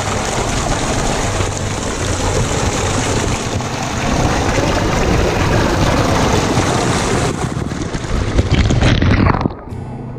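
Tubewell water gushing from a pipe and splashing into a concrete tank, a loud steady rush that drops away sharply about nine and a half seconds in.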